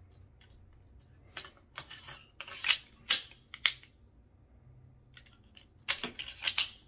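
Metal clicks and scraping as a low-mass bolt carrier group is slid by hand into an AR-15 upper receiver, with the sharpest clicks about three seconds in and a quick cluster near the end.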